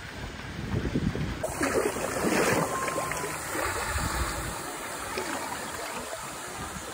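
Shallow water lapping and splashing right against the microphone, with a swimmer splashing in the water and some wind on the microphone.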